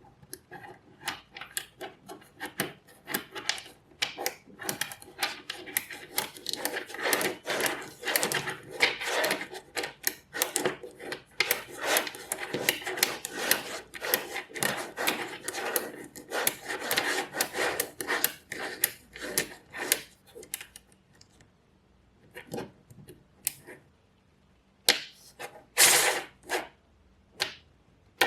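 Small magnetic balls clicking and clattering as they are snapped together and rolled. A dense run of rapid clicks thins out about three-quarters of the way through to a few scattered clicks, with one louder clatter near the end.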